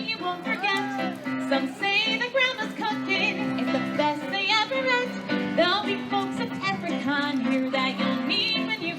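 Western-style song playing: a singing voice over steady instrumental accompaniment.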